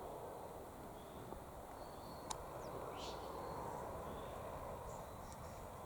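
Quiet outdoor background: a steady low noise with a few faint, short, high bird calls in the distance and a couple of small sharp clicks, one a little over two seconds in.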